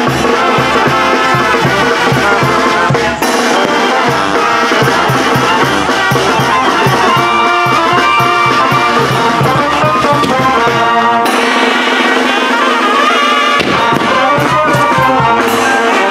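Oaxacan regional brass band music, horns over a steady drum beat; the bass and drums drop out for a couple of seconds about eleven seconds in.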